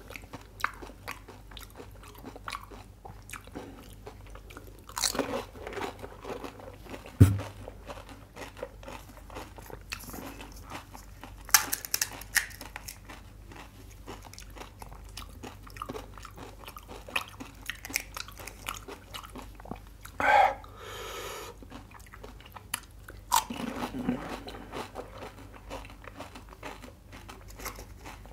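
Chewing and crunching of pani puri: the crisp, hollow puri shells breaking between the teeth, with louder crunches every few seconds. One dull knock stands out about a quarter of the way in.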